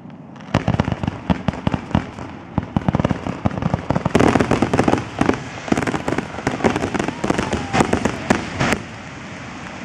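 Fireworks barrage: aerial shells bursting in rapid succession, many sharp bangs and crackles a second. It starts about half a second in, is heaviest around the middle and stops about a second before the end.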